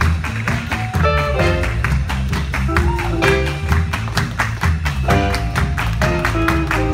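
A live gospel band playing, with an electric guitar picking a melody line over bass and a steady beat.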